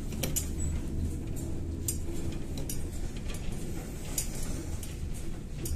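Cabin noise of a moving Kyiv-12.03 trolleybus: a steady low rumble from the running gear and road, with scattered rattles and clinks from the body and fittings.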